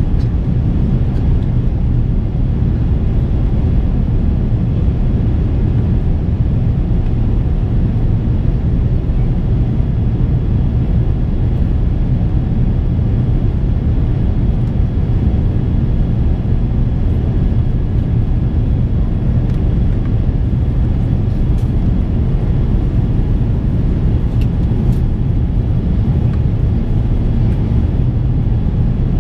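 Steady cabin roar of an Airbus A350-900 in its climb after takeoff: the Rolls-Royce Trent XWB engines and rushing air heard from inside the passenger cabin. The roar is deep and even, with a faint high whine over it.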